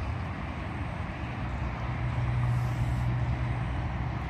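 A steady low engine drone from a distant vehicle over an even wash of outdoor noise, growing a little louder in the middle.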